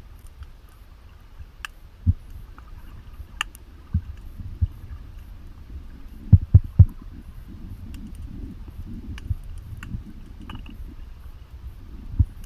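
Muffled underwater sound heard through a diver's camera housing: a steady low rumble with scattered dull thumps, three close together about halfway through and another near the end, and faint sharp clicks now and then.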